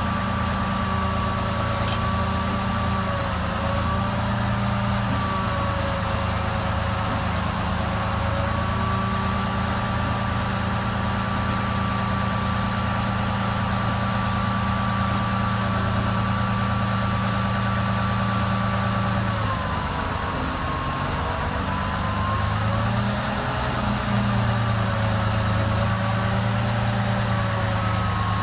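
Heavy diesel engine running steadily, with a higher whine that wavers in pitch over its drone. About twenty seconds in, the engine note dips and changes for a few seconds, then settles back.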